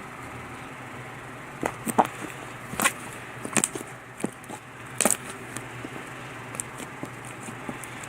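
Slime being kneaded and stretched by hand, giving wet clicks, pops and squishes: a cluster of sharp pops between about one and a half and five seconds in, then fainter scattered ones, over a steady background hiss.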